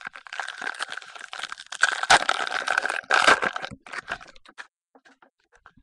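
Football card pack being opened and its cards handled: a dense crinkling, clicking rustle of wrapper and card stock, loudest about two and three seconds in, thinning to a few scattered clicks after about four seconds.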